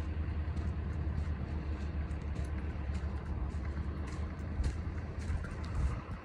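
Old-body-style Chevrolet pickup's engine idling, a steady low rumble from the exhaust that falls off near the end.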